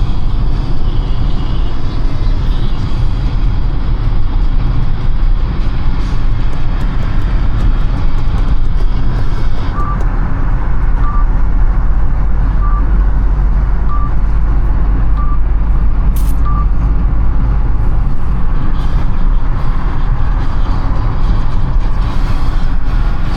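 Steady low road and engine rumble of a car driving at expressway speed, heard from inside the cabin. About ten seconds in come six short, evenly spaced beeps of one pitch, roughly one every 1.3 seconds.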